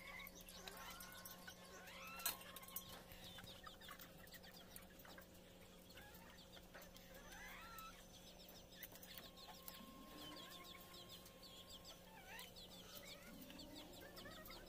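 Chickens clucking softly and intermittently, with a sharp knock about two seconds in and a faint steady hum underneath.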